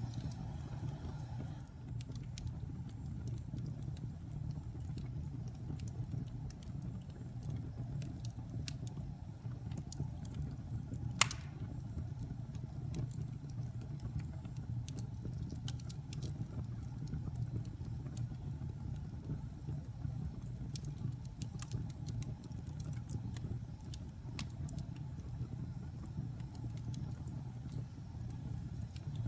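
Wood fire crackling, with a steady low rumble under scattered sharp snaps and one loud pop about eleven seconds in.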